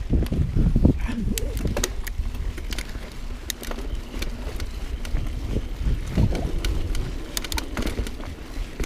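Mountain bike riding fast down a dirt singletrack: wind buffeting the camera microphone and tyres rumbling over the dirt, loudest in the first second and easing after. Sharp clicks and rattles from the bike come throughout as it goes over bumps.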